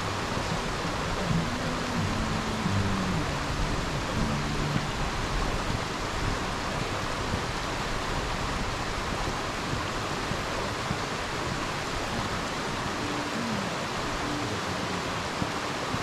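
Waterfall rushing, a steady, even hiss of falling water.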